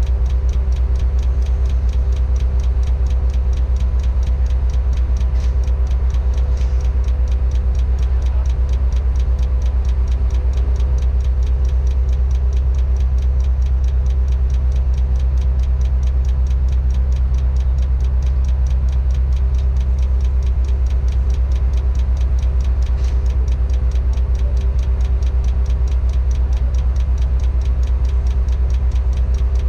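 Diesel engine of a Tadano 180G-5 crane running steadily, heard from inside the operator's cab: a deep, even engine note with a fast, regular ticking pulse and a faint steady hum over it.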